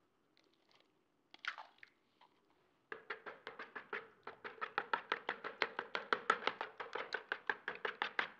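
Raw eggs being beaten with a metal spoon in a plastic mixing bowl: a fast, even clicking of the spoon against the bowl, about six strokes a second, starting about three seconds in after a few faint knocks.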